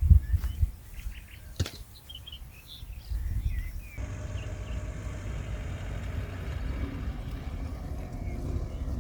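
Small birds chirping, with a few knocks and a sharp click in the first couple of seconds. About four seconds in, the sound switches abruptly to a steady low rumble.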